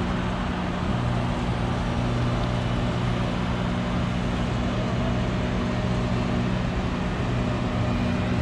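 Boom crane truck's engine running at a steady speed while it powers the crane through a lift, giving a constant low hum with no change in pitch.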